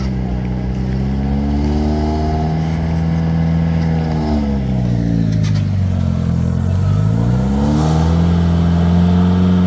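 Lada Niva engine running and revving. The revs sag about five to six seconds in, then climb back and are held steady near the end.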